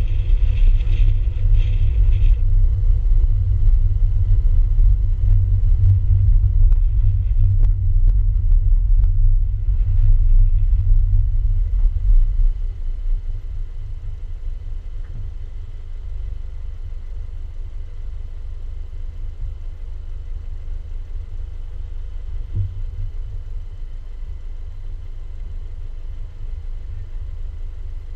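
Low, steady rumble of a car moving slowly, picked up by a car-mounted GoPro. About twelve seconds in it drops to a quieter low rumble, typical of wind on the camera's microphone.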